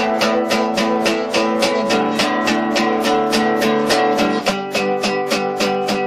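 Background music: a guitar strummed in a quick, even rhythm.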